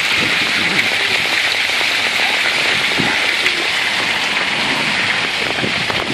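Steady rushing hiss of falling water from a small waterfall in a park water channel.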